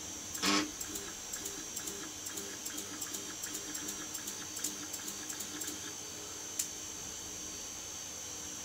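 Stepper-driven axis of a home-built 3D printer jogging in short ticking steps, about three a second, for several seconds and then stopping, followed by a single sharp click. The axis is moving only part of its travel before something snags. A steady high-pitched whine runs underneath.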